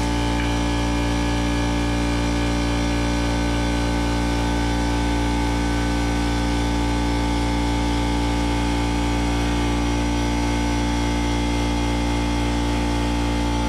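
An engine running steadily at constant speed, with no change in pitch or loudness.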